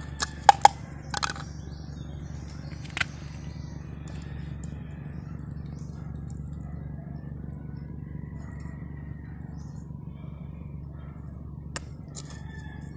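Sharp clicks and taps from handling small metal epoxy tins, a cluster in the first three seconds and one more near the end, over a steady low hum.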